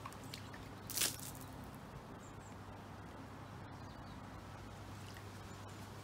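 Water poured from a plastic jug into a shallow dish, with one short splash about a second in, over a steady low hum.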